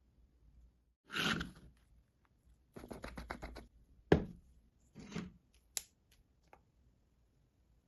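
Small hand-work noises on a model part: a short scrape, a quick run of ticks, then a sharp click and a few lighter clicks.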